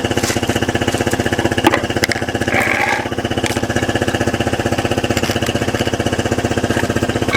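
Piaggio Skipper ST 125 cc scooter engine idling steadily, with a rapid even pulsing from the exhaust. A short hiss comes about two and a half seconds in.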